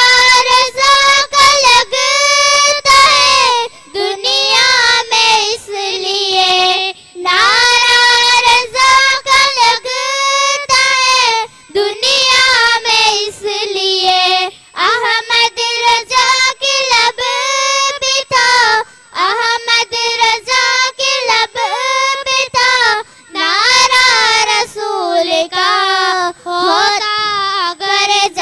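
Young girls singing a Kutchi naat (Islamic devotional song) into microphones, unaccompanied, in long sliding phrases broken by short pauses for breath.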